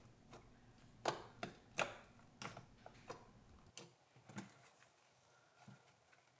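Faint clicks and pops of thick, foamy slime made from glue and shaving cream, squeezed and poked by hand. The sharpest come about one and two seconds in, and they grow fainter in the second half.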